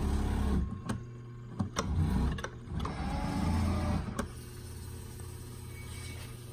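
Electric motors of a 1970s Junkyard crane arcade game whirring as the claw is driven across the playfield, with several sharp clicks in the first four seconds. After about four seconds only a steady low hum remains.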